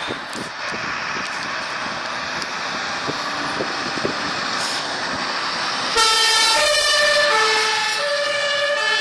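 Fire engine approaching with its engine and road noise, then its two-tone siren switching on suddenly about six seconds in, loud and alternating between two pitches as the truck passes close by.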